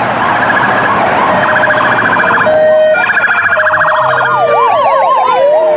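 Sirens of an ambulance and a police car responding together: several electronic sirens overlap, fast warbling yelps over slower rising-and-falling wails, with one tone sliding steadily downward in the second half.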